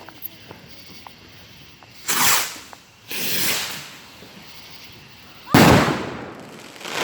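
Fireworks going off in three separate blasts: a sharp bang about two seconds in, a hissing burst a second later, and the loudest, deepest bang about five and a half seconds in, each dying away over about half a second.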